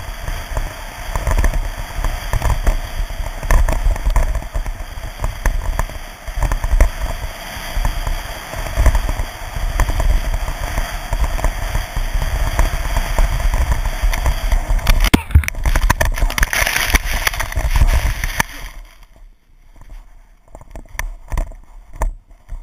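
Wind buffeting the microphone of a head-mounted action camera, with skis scraping over packed snow during a fast downhill run. About fifteen seconds in comes a sharp crack, then a few seconds of louder hissing and tumbling snow noise as the skier wrecks, after which the sound drops to quiet with scattered rustles and knocks.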